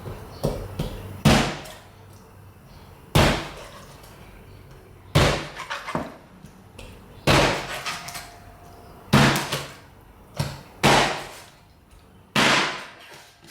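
A knife chopping down through the back of a whole raw chicken: about seven hard, sharp strikes, roughly two seconds apart, with light clatter between.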